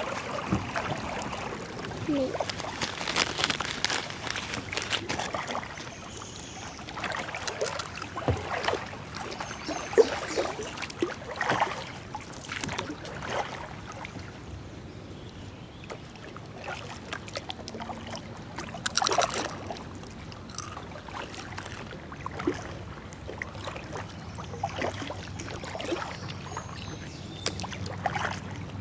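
Kayak paddle blades dipping into and pulling through river water in irregular strokes, with splashing and dripping between them.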